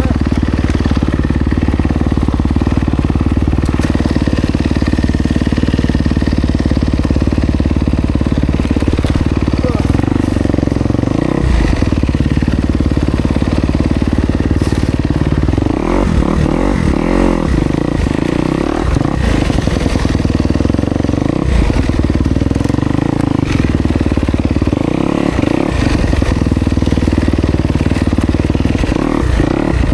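Kawasaki KX250X dirt bike's single-cylinder four-stroke engine running under way on a trail, steady at first. From about halfway on, its pitch repeatedly rises and falls as the throttle is worked on and off.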